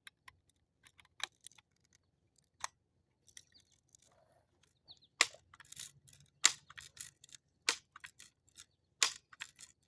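Ruger NXG multi-pump BB air rifle being handled and then pumped: a few light clicks, then four sharp clacks of the pump lever about 1.3 s apart in the second half.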